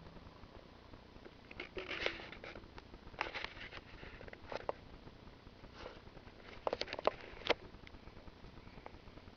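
Pet rabbits eating from a food bowl: scattered small crunches and clicks of chewing and nibbling in irregular clusters, the sharpest few about seven seconds in.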